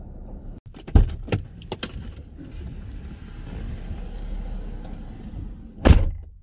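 Keys jangling with a few sharp clicks, a car's low rumble in the middle, then one loud thump near the end.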